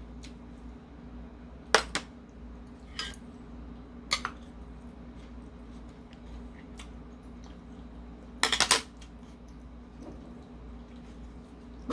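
Metal spoon and chopsticks clinking against porcelain dishes in scattered short clinks, with a quick run of several clinks about two-thirds of the way through.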